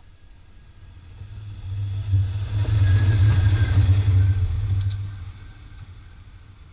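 Diesel-electric locomotive passing close by at track level: a deep engine rumble that builds, is loudest for about three seconds as it goes by, then fades. Two sharp clicks sound near the end of the pass.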